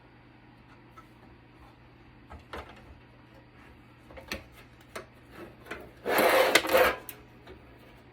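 Small clicks and knocks of tools and parts being handled while a network switch is taken apart, then a loud scraping rub lasting about a second, around six seconds in.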